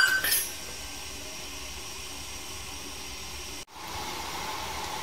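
Stainless steel idli cups clink together once with a short metallic ring, followed by a steady hiss that briefly drops out about two-thirds of the way through.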